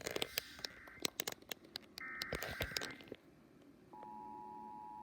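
Emergency Alert System test heard over AM radio: the last two bursts of the digital SAME header, buzzy data tones about a second long and a second apart, amid sharp crackling clicks. About four seconds in, the steady two-tone EAS attention signal begins.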